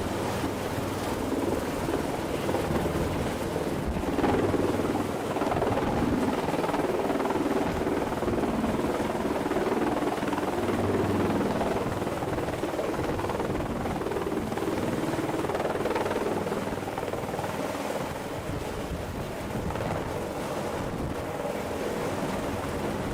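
AH-64D Apache Longbow attack helicopter running: a steady sound of its rotors and twin turboshaft engines that swells slightly about four seconds in and eases a little near the end.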